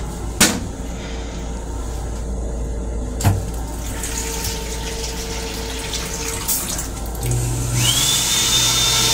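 M7 railcar restroom: a click as the toilet lid is closed, then the sink faucet running into the basin over the train's steady running hum. About seven seconds in the toilet's flush cycle starts: a motor hum, then a loud rushing sound with a high steady whine.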